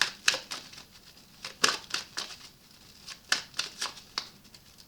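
Tarot cards being handled, giving about a dozen sharp, irregularly spaced snaps and flicks.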